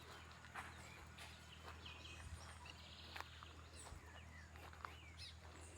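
Faint, quiet outdoor ambience: scattered short bird chirps and small ticks over a low steady hum.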